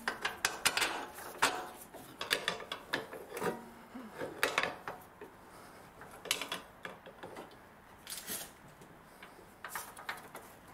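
A steel bolt being wiggled and pushed through a car's lower control arm bushing and subframe mount: irregular metallic clicks, knocks and scrapes, in bunches with short pauses between.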